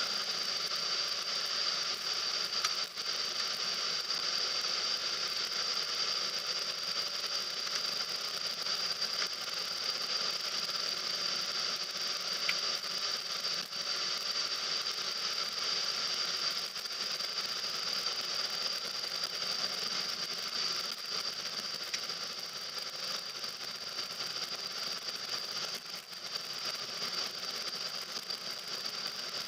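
Steady running noise of a car being driven, heard from inside the cabin: a constant hiss with a steady high-pitched whine over it.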